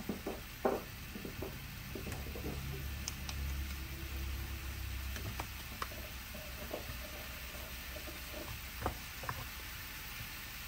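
Raw meatballs in a nonstick frying pan beginning to sizzle faintly as the electric stove's burner first heats up, with scattered small pops and crackles. A low hum runs through roughly the first half.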